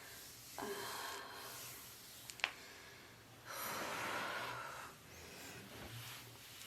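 A woman breathing: a short low sound falling in pitch about half a second in, a sharp click about halfway through, then a long breathy exhale.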